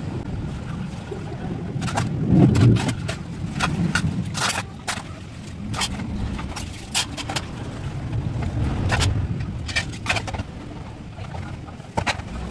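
Metal pans, bowls and dishes clinking and clattering as they are handled at a kitchen sink: a run of sharp knocks over a steady low rumble.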